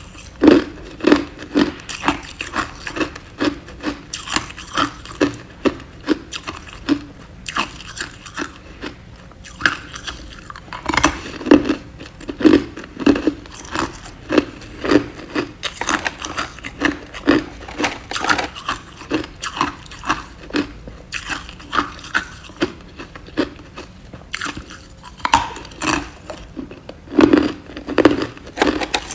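A person biting and chewing ice cubes close to the microphone: a steady run of sharp, loud crunches about two a second, with a few short pauses between mouthfuls.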